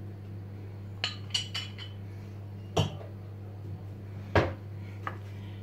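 Kitchen clatter: a handful of short clinks and knocks of a glass bottle and utensils against a nonstick pot and the counter, the loudest about four and a half seconds in, over a steady low hum.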